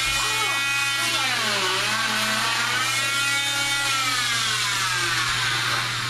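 Oscillating cast saw running at a cast, a steady low hum under a high whine that dips in pitch, rises again and fades near the end.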